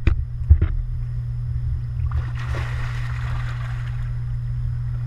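Tarpon splashing at the surface as they strike at hand-held bait: a burst of splashing water about two seconds in, lasting under two seconds. A couple of sharp knocks come right at the start, over a steady low rumble.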